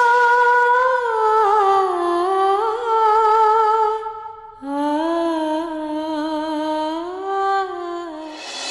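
Wordless female humming as background music: two long, slowly bending phrases, with a short break about four seconds in.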